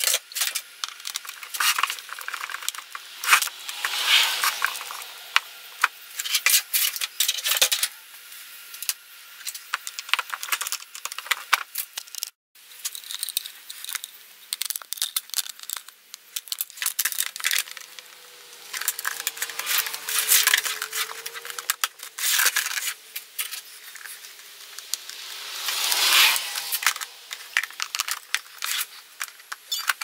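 Plastic parts of a drip coffee maker being handled and cleaned: repeated rubbing and wiping strokes mixed with many clicks and knocks of plastic pieces. Near the end the lid is pressed back onto the machine.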